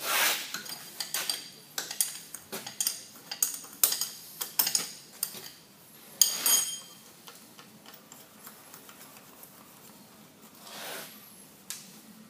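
Spanner and steel parts of a lathe's compound slide clicking and clinking in quick succession as its hold-down nuts are undone, with one louder ringing metal clink about six seconds in.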